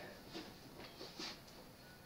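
Faint handling noises from bench work: a few soft clicks and taps, about a third of a second in and again a second and a little after.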